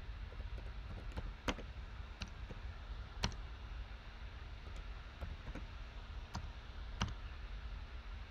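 Typing on a computer keyboard: scattered key clicks with a few louder strokes, over a low steady hum.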